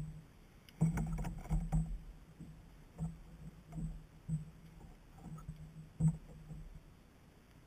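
Small waves slapping against a plastic kayak hull in irregular dull thumps. About a second in comes a cluster of knocks and rattles as fishing line and wet seaweed are hauled aboard.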